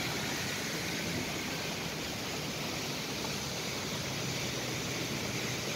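Steady hiss of heavy rain on a flooded street, with traffic driving slowly through the standing water.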